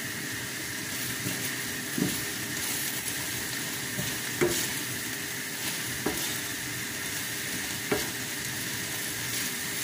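Ground beef sizzling steadily in a stainless steel frying pan as it is stirred with a wooden spatula. The spatula knocks against the pan about every two seconds, loudest a little before the middle.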